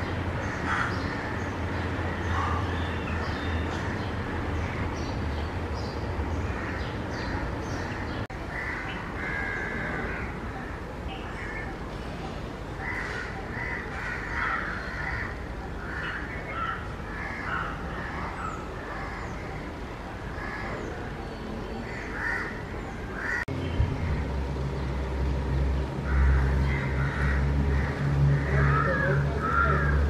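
House crows cawing repeatedly, with chirps from smaller birds around them. A low rumble comes in about three-quarters of the way through.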